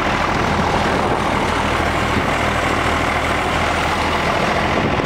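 Tractor engine running steadily while towing a trailer along a road, heard from riding in the jolting trailer bed, with low engine hum under a constant rumble of travel noise.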